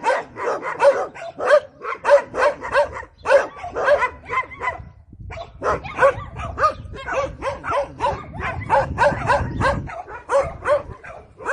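Several dogs barking repeatedly and overlapping, about three barks a second, with a brief pause about five seconds in.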